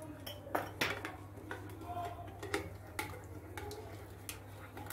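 Metal spoon stirring wet batter in a glass bowl, clinking and scraping against the glass in irregular clicks.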